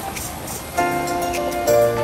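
Background music added in the edit, with held chords over a light beat; fuller, louder chords come in about three-quarters of a second in.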